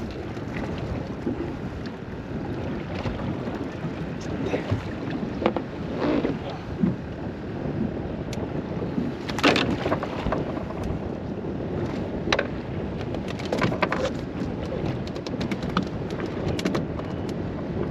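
Wind buffeting the microphone over water slapping the hull of a small boat lying in a light chop, with no motor running. A few sharp knocks and clicks sound through it, the loudest about halfway through.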